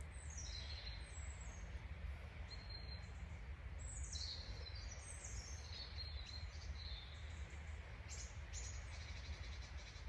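Forest ambience: songbirds singing several short, high phrases that fall in pitch, over a steady low background rumble.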